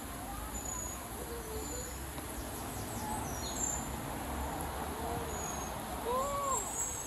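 Birds calling over a steady hiss of a small woodland stream: scattered short high chirps and a few low, hooting or cooing calls, the clearest pair near the end.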